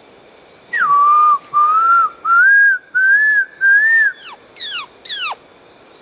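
Loud clear whistling: five held notes, each rising slightly in pitch, followed by three quick whistles that sweep steeply downward.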